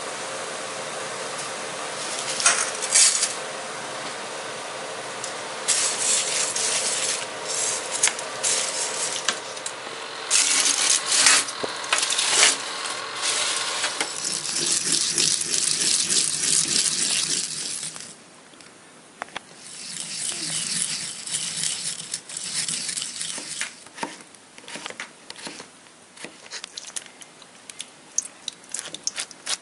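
Kitchen cooking sounds: a steady hum, then irregular clatter and knocks of metal cookware. After a drop near the middle comes a run of short, quick scraping strokes as cucumber is grated and scraped off a ceramic grater into a steel bowl.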